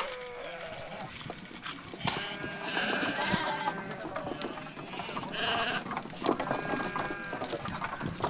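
A sharp click at the very start, then a large flock of sheep and goats bleating from about two seconds in, many overlapping calls at once.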